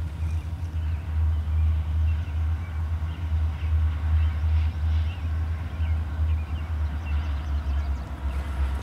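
Low, steady rumble of distant EMD SD60M diesel locomotives hauling a freight train, with faint bird chirps throughout.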